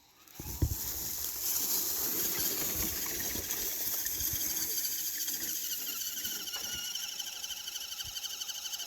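Redcat Everest 10 RC crawler's electric motor and gearbox whining steadily as it drives. It starts suddenly just after the beginning, and the pitch of the whine sinks slightly toward the end.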